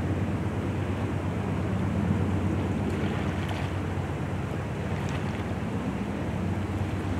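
Two GE diesel-electric freight locomotives, a Dash 9-44CW leading an AC44C6M, heard from a distance as a steady low drone with a hiss over it as they haul a loaded train.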